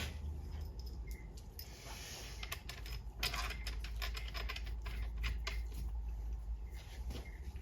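Irregular light clicks and taps of hand work with small metal parts and tools on a transmission, over a steady low hum. There is a quick run of clicks about three seconds in.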